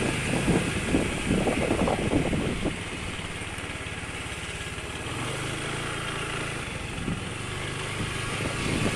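Motorcycle engine running while being ridden, with wind buffeting the microphone. The gusts ease about three seconds in, and a steady engine hum stands out for a second or two around the middle before the wind picks up again.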